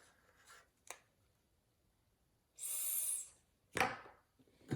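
Objects being handled on a desk: a faint click, then a short scraping rustle, then a sharp knock.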